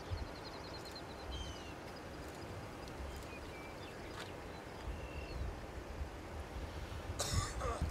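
Open-field outdoor ambience: a low steady rumble with several birds chirping and trilling over it, and a brief noisy burst near the end.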